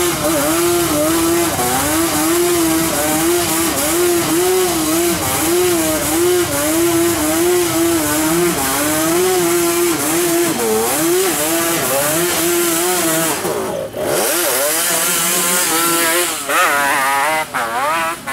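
Quad-bike (ATV) engines running as the machines pick their way down a muddy trail, their pitch rising and falling in a steady wavering pattern with the throttle. Near the end one quad revs hard, its pitch sweeping sharply up and down as it climbs a muddy bank.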